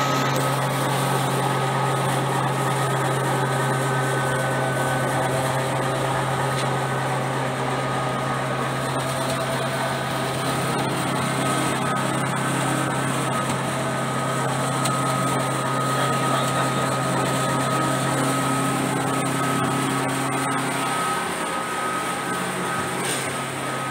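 Electric noodle-making machine running steadily, its motor and roller drive giving a constant hum with a thin high whine.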